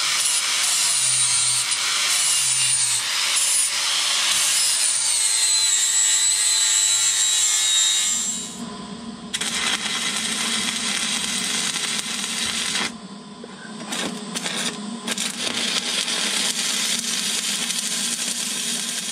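An angle grinder runs against a steel bracket for about eight seconds, its high whine shifting slightly as it bites. Then stick (arc) welding takes over, an even crackling hiss over a steady low hum that drops out briefly twice.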